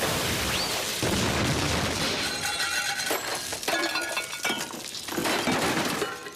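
Loud crashing and shattering, a dense clatter of many sharp impacts like breaking glass and debris, easing off near the end.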